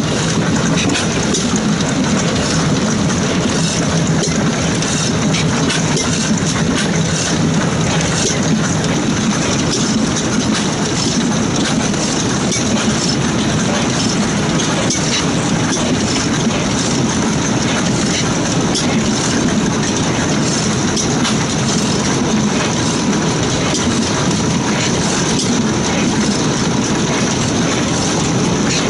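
Early-1900s Van Eecke-Gheysens 'La Fourmi' stationary gas engine running steadily, with a continuous mechanical clatter from its moving parts.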